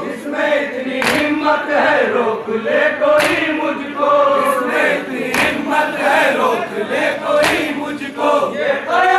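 Group of men chanting a noha (Muharram lament) in unison, with sharp chest-beating (matam) strikes landing together about every two seconds.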